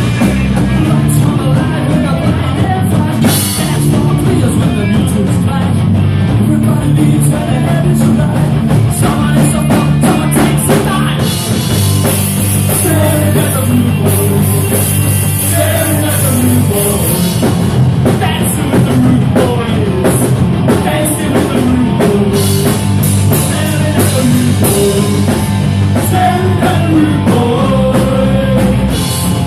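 Live punk rock band playing loudly: drum kit, distorted electric guitar and bass, with a singer's voice over the top.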